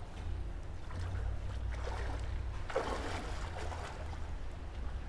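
Riverside ambience: flowing river water over a steady low rumble, with faint distant voices about three seconds in.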